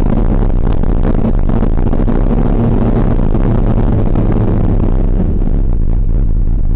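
Motorcycle riding along an open road: a steady engine drone mixed with heavy wind rush on the bike-mounted microphone, easing off near the end as the bike slows for a junction.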